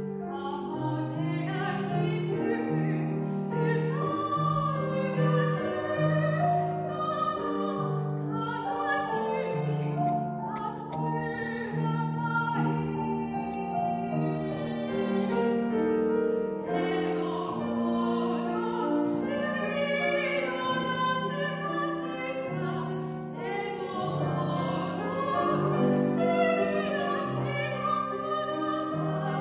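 A woman's classically trained voice sings a slow, legato art song in operatic style, accompanied by a grand piano.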